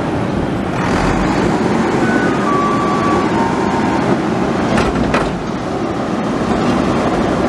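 Garbage truck running, a steady rumble with a short thin whine about two seconds in and two sharp knocks about five seconds in.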